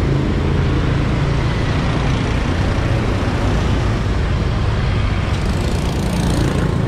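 Road traffic of motorbikes heard from a moving scooter: a steady engine hum and road noise, with a brief rise in hiss about five seconds in.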